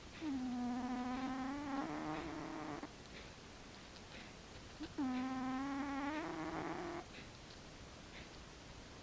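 A domestic cat snoring in its sleep: two long snores about four and a half seconds apart, each on a steady low pitch.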